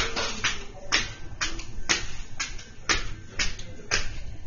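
Footsteps on station stairs, about two steps a second, each a sharp tap.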